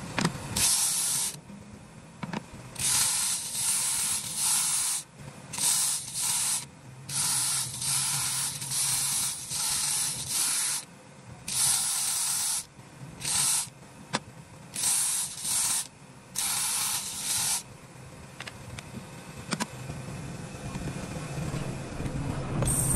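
Compressed air hissing in a run of short bursts, each under a second, with brief gaps between them; the bursts stop about three-quarters of the way through.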